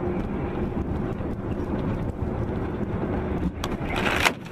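Steady engine and road drone from inside a vehicle on a wet road. Near the end, two loud, hissing splashes as slush and dirty water spray across the windshield.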